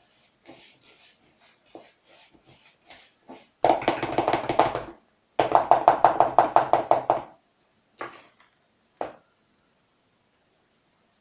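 Sticky butter, coconut and condensed-milk mass being mixed in a plastic bowl. It starts with soft, uneven squishing strokes, then comes two loud spells of fast, even stirring strokes, about eight a second. Two single knocks follow near the end.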